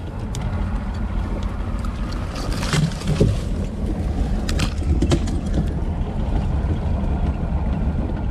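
A bass boat's outboard motor running under power as the boat forces its way through willow branches, with several sharp snaps and cracks of branches breaking against the boat about 2.5 to 5 seconds in.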